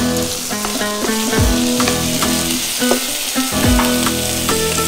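Raw chicken strips sizzling in hot oil in a nonstick frying pan as they are turned with wooden tongs: a steady hiss. Background guitar music with a beat plays over it.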